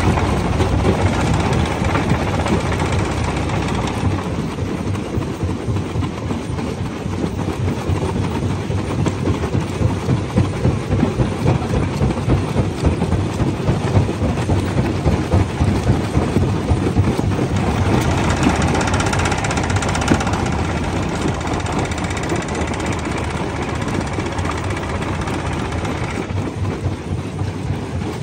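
Rock crusher machine crushing stones: a continuous heavy rumble and a dense clatter of rock breaking, with harsher grinding stretches near the start and again about two-thirds of the way through.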